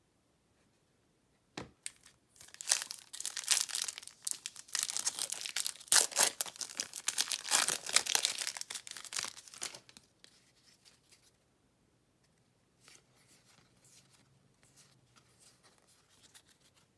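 Plastic and foil trading-card packaging being torn open and crinkled: a sharp click, then about eight seconds of dense tearing and crinkling, fading to light rustling near the end.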